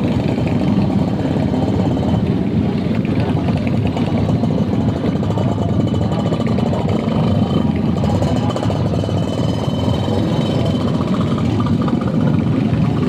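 A vehicle engine running steadily through its exhaust, loud and continuous, with a fast, even firing beat.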